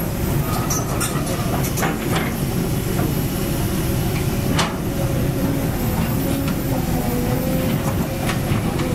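Heavy construction machinery running steadily with a low rumble, broken by several sharp metal clanks and knocks.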